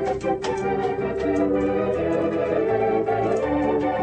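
Background music led by an organ: held chords and a melody that changes note every fraction of a second, over light percussion.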